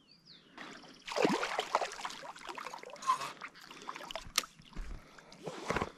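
A hooked traíra splashing in shallow, weedy water as it is pulled in to the bank on a frog lure, loudest about a second in, with a few sharp clicks near the end.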